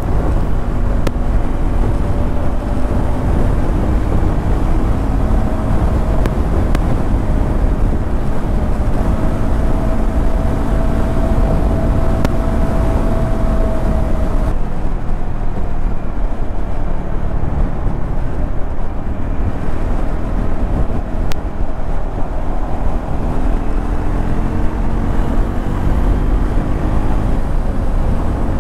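Triumph Scrambler 400X's single-cylinder engine running at highway cruising speed, heard from the saddle under heavy wind and road rumble. Its note drifts slowly up and down as the speed changes.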